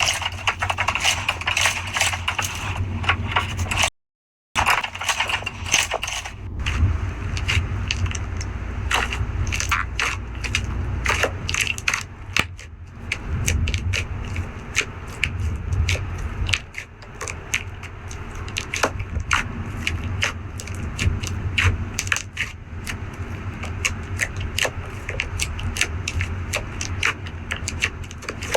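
Slime being squeezed and worked by hand: a dense, steady run of crackling clicks and pops, with a short dead gap about four seconds in.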